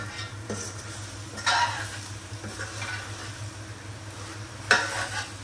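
Spinach and chicken sizzling as they are sautéed in a stainless-steel kadai, stirred with a metal spatula that scrapes and clanks against the pan a few times, loudest near the end. A steady low hum runs underneath.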